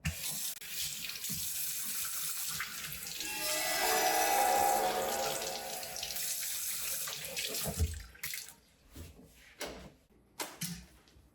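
Tap water running into a sink, swelling in the middle with a ringing tone, then shutting off about eight seconds in, followed by a few clicks and knocks.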